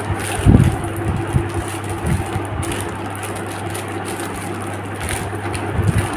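A steady low hum, with a few bumps and rustles of a parcel being handled and opened. The loudest bump comes about half a second in, with another near the end.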